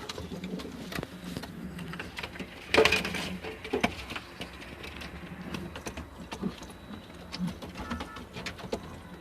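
Domestic pigeons in a loft, with low cooing and many scattered light taps and clicks. A louder rustle comes about three seconds in.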